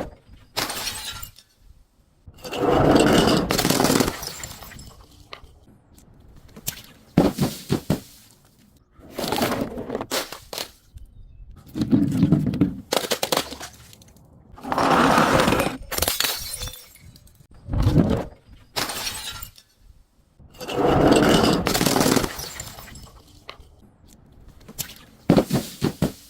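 Glass bottles breaking and being crushed, with a run of separate crunching, shattering events every two to three seconds. Some are drawn-out crunches lasting a second or more, and some are short sharp cracks.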